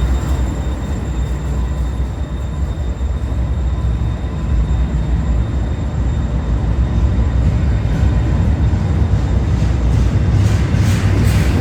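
Union Pacific train passing, a loud, steady low rumble of locomotive and rolling wheels.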